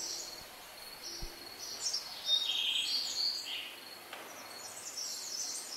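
Outdoor summer ambience: birds chirping over a steady high insect drone.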